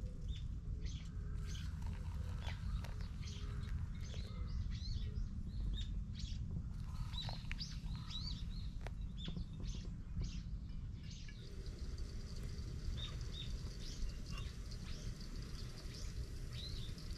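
Small birds chirping, many short quick chirps that fall in pitch, thickest in the middle stretch and thinning toward the end, over a steady low rumble.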